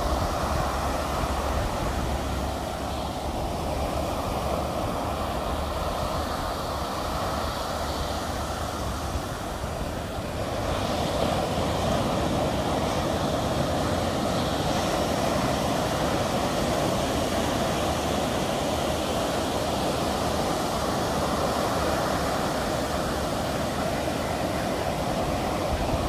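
Ocean surf breaking and washing up the shore: a steady rush of foaming water that eases slightly around ten seconds in and swells again just after.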